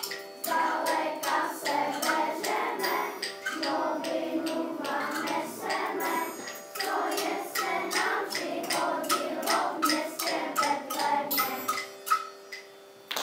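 A group of children singing a song together in unison, with sharp percussive ticks keeping a steady beat several times a second. The singing stops about a second before the end.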